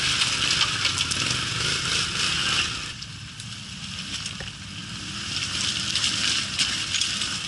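ATV engines running at low revs as quads crawl over loose rock, with scattered knocks and crunches of stones under the tyres. The sound drops back for a couple of seconds in the middle, then builds again.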